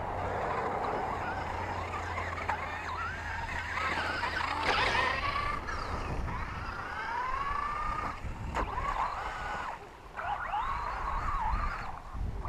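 Electric motor of a Twin Hammers radio-controlled rock racer whining, its pitch gliding up and down again and again as the throttle is worked, over a steady rushing noise.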